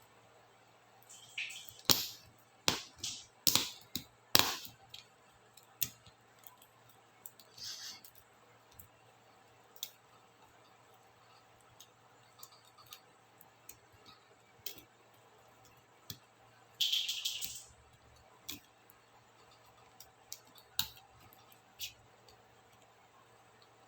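Small plastic clicks and snaps from laptop keyboard keycaps and their clips being worked by hand: a quick run of sharp clicks in the first few seconds, then scattered single clicks, with a short scraping rustle about two-thirds of the way in.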